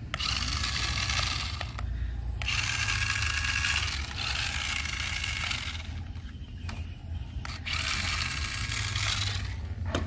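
Small electric motor of a toy remote-control car whirring in four bursts of one to two seconds as its wheels spin freely in the air.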